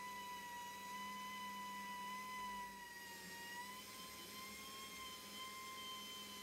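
Small 2-inch pneumatic polisher with a microfiber pad running steadily with a high whine, its pitch sagging slightly about three seconds in and then recovering.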